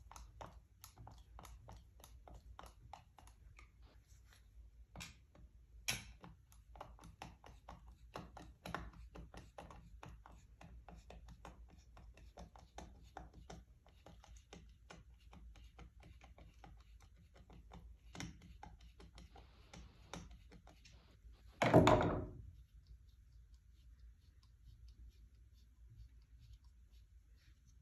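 Hand tool working a stubborn bolt loose: a long run of small, closely spaced clicks and taps with a few louder knocks. The bolt is held with blue Loctite. A single loud metal clunk comes about 22 seconds in.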